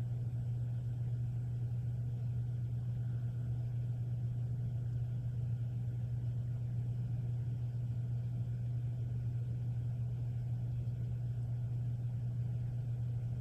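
A steady low hum with a faint hiss above it, unchanging throughout.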